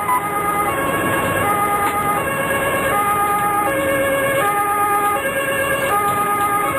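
Two-tone German emergency siren (Martinshorn) on a fire brigade ambulance, alternating steadily between a high and a low note about every three-quarters of a second. It is heard from inside the cab over the ambulance's engine and road noise.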